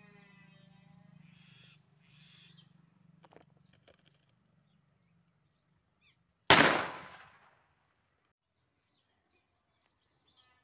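Homemade wooden pistol firing once: a single sharp, loud bang about six and a half seconds in, dying away over about a second. A few faint clicks come before it.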